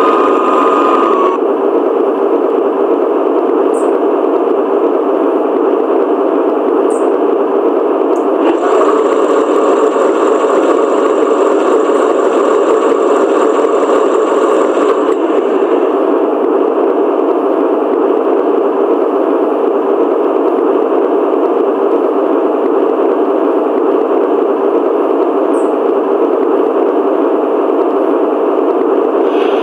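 LGB V220 model diesel locomotive's sound module playing a steady diesel-engine idle through its small speaker while the locomotive stands still.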